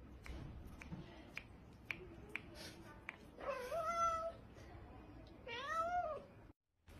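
A kitten meowing twice, two high calls that rise and fall, begging for food held just above it. A few faint clicks come before the first meow.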